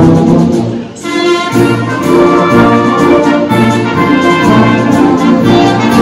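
Symphonic wind band playing sustained, brass-led chords. The sound drops away briefly just before a second in, then the full band comes back in.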